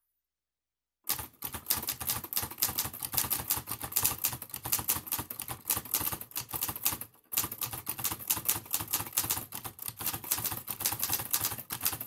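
Typewriter keys clacking in a fast, dense run of keystrokes. It starts about a second in, with a brief pause a little past the middle.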